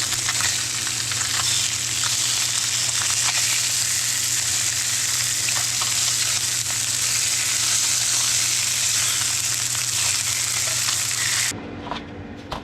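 Skin-on bluegill and crappie fillets sizzling in hot oil in a frying pan: a dense, steady hiss with scattered small pops. It cuts off suddenly near the end, leaving a few light clicks.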